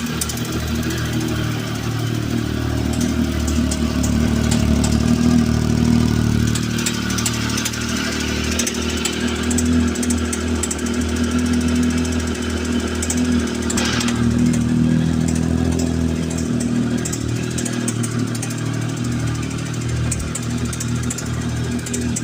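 Triumph Tiger 1050's inline three-cylinder engine running steadily with a knock coming from the engine, heard as fine rapid ticking over the engine note. There is a short hiss about two thirds of the way through.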